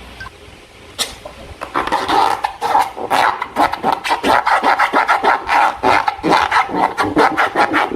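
Slime and rubber balloon being squished and rubbed by hand. After a single click about a second in, dense, rapid, irregular squelching and crackling sets in and keeps going.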